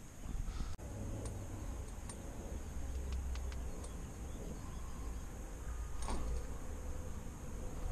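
Low rumbling handling noise and rustling as the shooter shifts about in the net hide, with a sharp click about a second in and a few faint small ticks after it.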